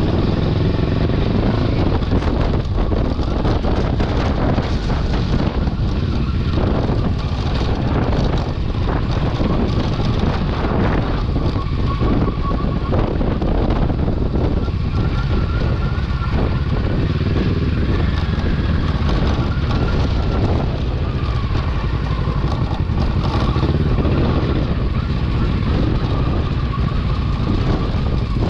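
Kawasaki Versys 650's parallel-twin engine running steadily as the motorcycle rides over a rough dirt trail, with scattered knocks from the bike over bumps.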